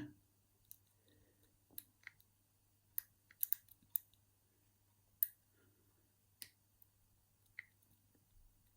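Faint, irregular clicks of a lock pick and tension wrench working the pins of a six-pin Yale euro cylinder lock with security pins, picked by hand: about a dozen small sharp clicks, bunched together around the middle.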